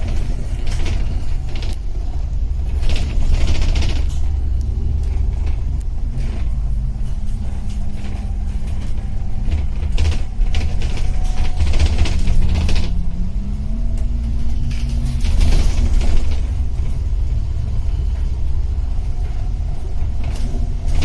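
Motor vehicle driving, a steady low engine rumble with a drone that drops in pitch about six seconds in and rises again about thirteen seconds in.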